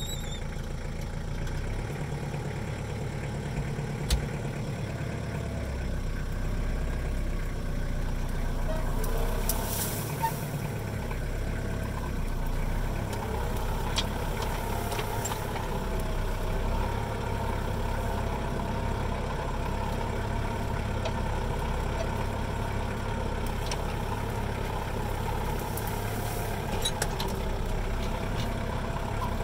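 Truck engine running steadily at low revs, with a few sharp knocks about 4, 10 and 14 seconds in.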